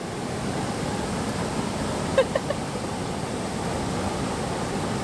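Mountain stream water rushing steadily, with a brief short sound a little after two seconds in.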